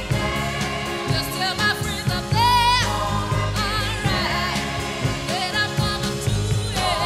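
Background music: a song with a singer's wavering melody over sustained low bass notes.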